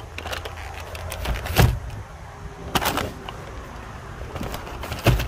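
Handling noise: things being moved and set down, with rustling and scraping between a few sudden knocks and thumps. The loudest thump comes about a second and a half in, another near three seconds, and one more near the end.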